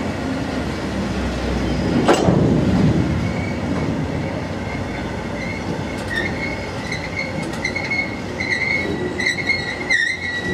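Freight train's open box wagons rolling past, their wheels rumbling and clattering on the rails, with one loud clank about two seconds in. From about three seconds in a high, wavering wheel squeal joins and grows louder as the last wagons go by.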